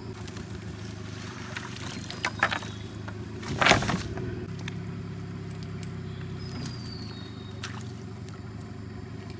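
Wet gill net being hauled by hand out of a river into a wooden boat: water running and dripping off the mesh with scattered small clicks, and one louder slap about three and a half seconds in. A steady low hum runs underneath.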